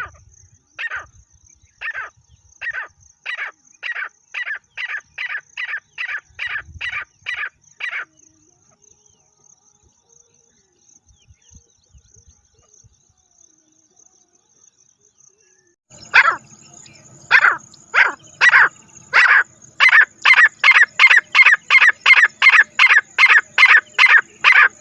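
Francolin calling: a series of harsh, repeated notes that start about one a second and speed up to two or three a second, stopping about 8 seconds in. After a pause of several seconds, a second, louder series begins and speeds up the same way.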